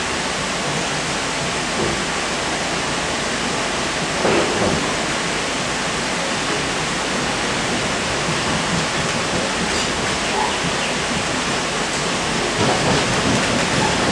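Steady running noise inside a Sydney Trains K-set double-deck electric multiple unit under way, a constant rumble and rush of wheels on rail. There is a brief louder jolt about four seconds in and rougher, louder running near the end.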